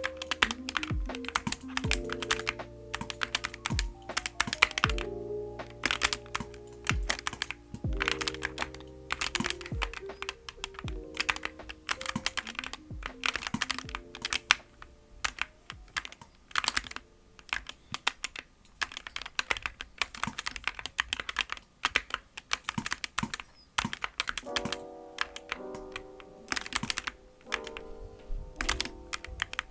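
Logitech G Pro X Superlight wireless gaming mouse buttons clicked over and over in quick, irregular runs, over background music.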